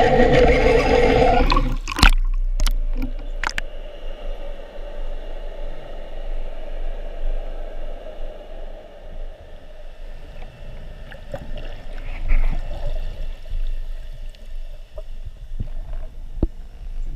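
Underwater water noise as heard through a GoPro's waterproof housing: a loud muffled rush for about the first two seconds, then a few sharp clicks and a quieter steady hiss with scattered faint clicks.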